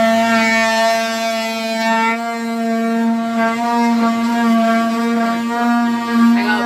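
Cordless drill running at a steady speed, a sustained whine that holds one pitch and stops sharply at the end.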